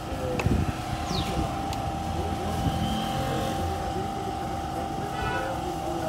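Steady mechanical hum of a running machine, with a few light knocks and clicks of metal parts being handled; one louder knock about half a second in.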